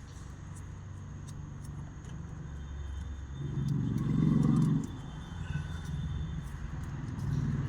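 A vehicle engine running with a low rumble that swells louder for about a second around four seconds in, with a few faint clicks.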